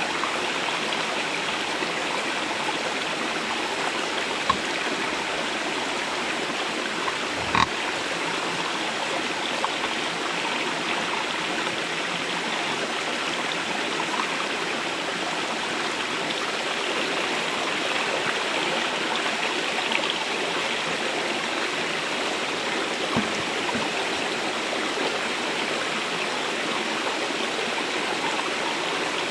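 Shallow rocky stream running over stones: a steady rush of water, with a few brief knocks here and there.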